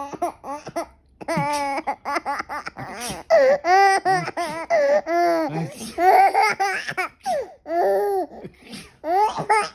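An eight-month-old baby laughing hard in a string of high-pitched bursts, about six of them, with short breaths in between.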